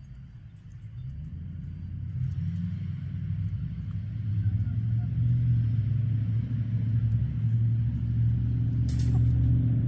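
Low engine rumble of a motor vehicle, growing louder over the first few seconds and then holding steady. A short click sounds near the end.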